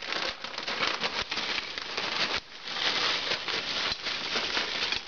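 Honey mustard mini pretzel twists poured from a plastic bag into a ceramic bowl of nuts: a dense clatter of many small hard pieces, with a brief lull about halfway through.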